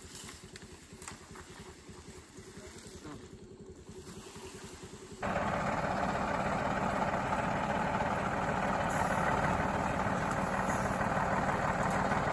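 Mercedes-Benz expedition truck's diesel engine running, fairly quiet for about five seconds, then suddenly much louder and close for the rest of the time.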